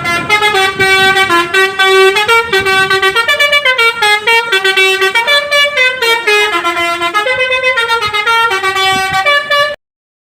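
A truck's telolet horn, a multi-note musical air horn, playing a fast, loud tune of short notes that step up and down in pitch. It cuts off suddenly near the end.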